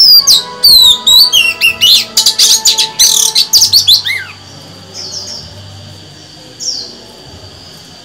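Female oriental magpie-robin singing: a dense run of loud, quick, sweeping whistled notes for about four seconds, then a few short separate notes.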